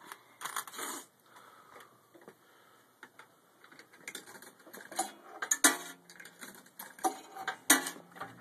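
Claw machine mechanism clicking and clattering, with two sharper knocks about five and a half seconds in and near the end, each followed by a short low hum.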